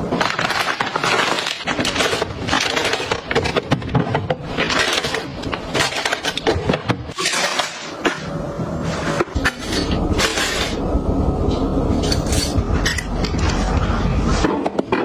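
Snack packets and metal tin canisters being handled and set down: plastic crinkling, with frequent clinks and knocks as the tins touch.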